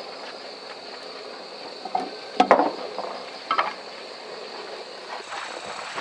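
Insects trilling steadily in a high band, with a few short clinks and knocks, the loudest about two and a half seconds in.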